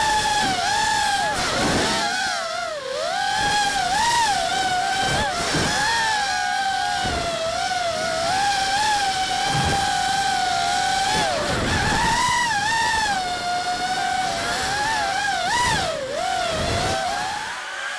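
FPV racing quadcopter's brushless motors and propellers whining in flight, the pitch swooping up and down as the throttle changes, with several brief dips where the throttle is chopped.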